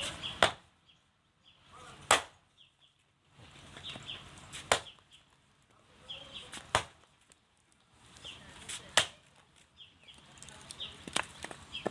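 Kitchen chopping: five sharp strikes about two seconds apart, with quieter scraping between them.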